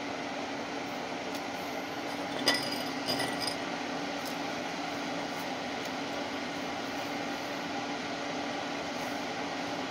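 Salvaged welder cooling fan running steadily inside a coffee-can fume extractor, a constant hum. A sharp clink comes about two and a half seconds in, followed by a few lighter clinks.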